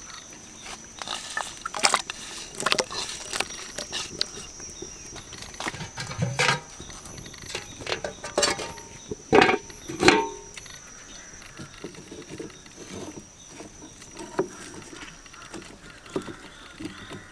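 Outdoor cooking at a wok on a wood-fired clay stove: scattered clinks, knocks and small splashes, two louder knocks about halfway through, over a steady high insect drone.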